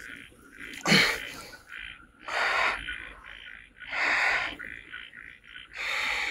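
A steady chorus of short chirping animal calls, about three or four a second, broken four times by louder breathy rushes of noise about a second and a half apart.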